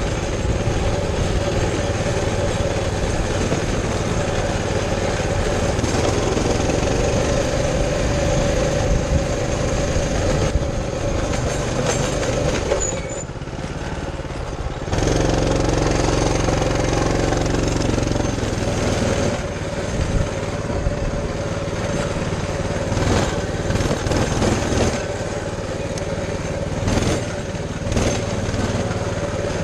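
Baja 200cc motorcycle engine running while the bike is ridden over grass. The engine eases off between about 12 and 15 seconds in, then pulls harder again.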